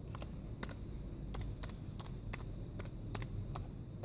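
Keys typed one at a time on a computer keyboard, about fifteen separate keystrokes at an uneven pace of three to four a second, over a faint low hum.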